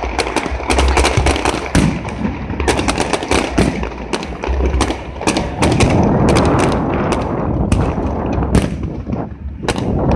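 Fireworks display: a dense run of sharp bangs and crackling reports, with deep booms underneath.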